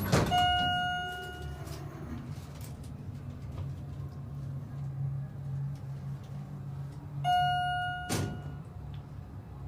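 Schindler Westinghouse traction elevator in travel: an electronic chime sounds once for about a second, the cab then hums steadily as it moves, and about seven seconds in the same chime sounds again, followed by a thud.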